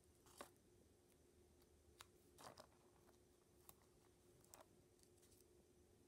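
Near silence with a faint steady hum, broken by about five soft rustles and clicks from a paper washi tape roll being handled: die-cut ginkgo-leaf pieces are peeled off the backing and pressed onto notebook paper.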